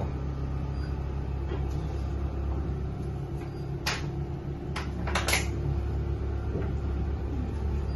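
Shopping mall atrium ambience: a steady low hum, with a few short, sharp clicks or clatters about halfway through.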